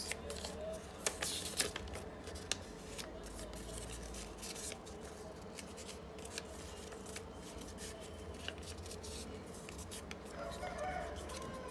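Colored craft paper being folded and creased by hand: crisp crackles and small clicks of the paper, busiest in the first couple of seconds and then sparser, over a low steady hum.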